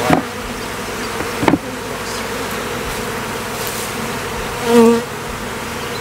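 Honeybees buzzing in numbers around an open hive, a steady hum. One bee swells loudly as it passes close, near the end, and a single knock sounds about a second and a half in. The colony has not yet settled after the hive was opened and honey frames were taken.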